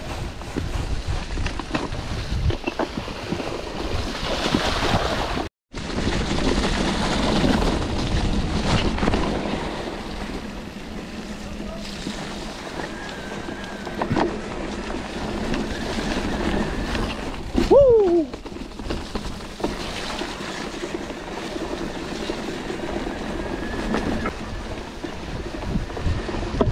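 Wind rushing over the microphone with rumbling tyre noise while mountain-biking on a trail. A short squeal falling in pitch sounds about 18 seconds in, and the sound cuts out briefly about 5 seconds in.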